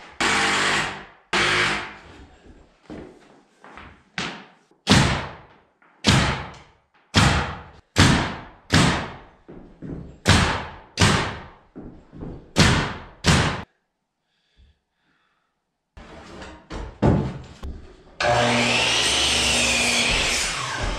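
Pneumatic framing nailer driving nails into wall-framing lumber: about fourteen sharp shots, roughly one a second, over the first thirteen seconds. After a short pause, a miter saw starts about eighteen seconds in and runs steadily.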